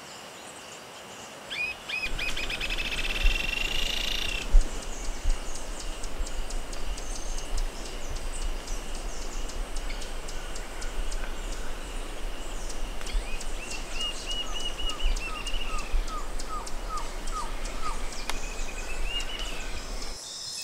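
Rainforest ambience: a steady hiss with several bird calls over it. A fast run of high notes comes about two seconds in, and a string of about ten short, falling notes comes later. A low rumble runs underneath.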